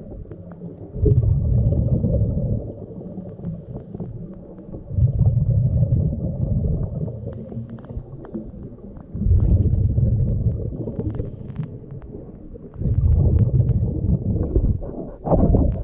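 Muffled rumbling underwater that swells for a second or two about every four seconds, with faint clicks and crackle between: a swimmer's breathing and movement heard through an underwater camera.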